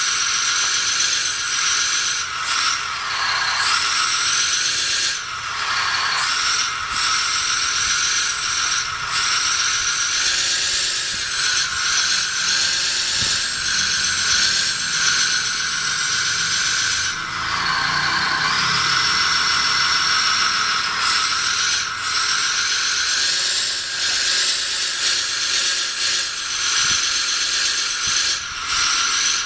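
A 1/16-scale Bruder CAT 320 RC excavator running, its SM3 sound card playing simulated excavator engine and hydraulic sounds through a small speaker, mixed with the model's motors and gears. The sound is steady but swells and dips in pitch several times as the machine works.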